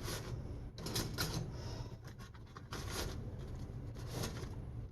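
Scraping, rustling handling noises, with a few short scrapes and knocks, as a sandwich in a grilled-cheese toaster bag is worked into a toaster.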